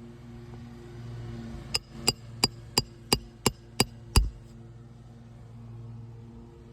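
Roofing hammer striking a steel roof snake eight times, about three blows a second, each with a bright metallic ring, driving a shingle nail back in under the shingle; the last blow is the heaviest and deepest.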